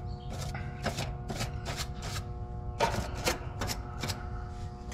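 A run of light, irregular clicks and taps, a few a second, from tools being handled at an air-conditioner's open control panel. Under them runs a steady hum with several fixed pitches.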